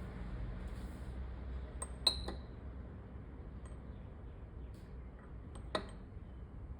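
Light clinks of something hard against glass: a sharp double clink with a short ring about two seconds in, and a single sharp click near the end, over a steady low background rumble.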